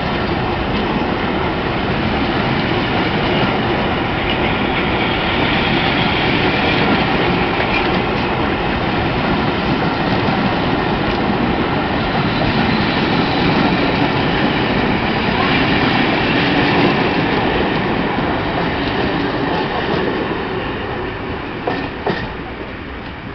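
Passenger coaches of a steam-hauled train rolling past at low speed, a steady rumble of wheels on the rails with a faint squeal, fading away near the end as the last coach clears.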